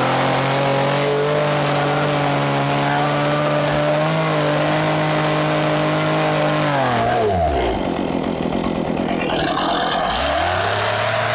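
Two-stroke chainsaw running at high revs with a steady pitch. About seven seconds in the throttle is released and the engine drops sharply to a low idle, then near the end it is revved back up.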